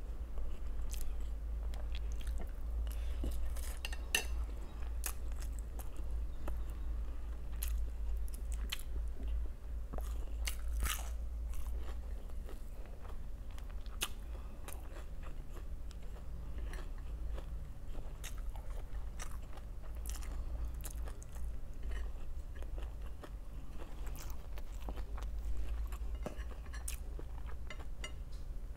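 Close-miked chewing and crunching of crisp fried food, with irregular sharp crunches scattered throughout over a steady low hum.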